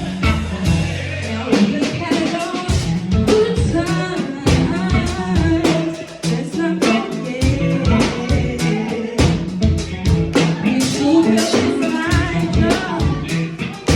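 A song: a singing voice over a band with drums keeping a steady beat.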